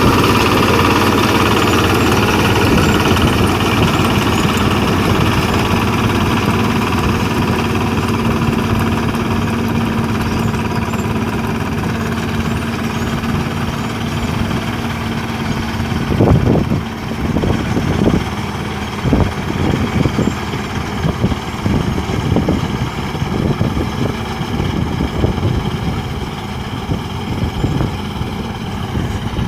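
Engine of a rice-harvesting machine running steadily. About halfway through, its steady hum drops away and uneven knocks and rattles begin over the engine.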